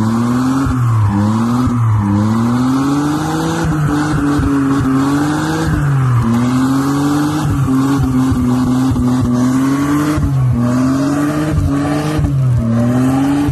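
2008 Mitsubishi Outlander's engine held at high revs during a burnout, with tyres squealing as they spin. The engine note climbs in repeated sweeps, holds steady for a few seconds in the middle, then climbs again.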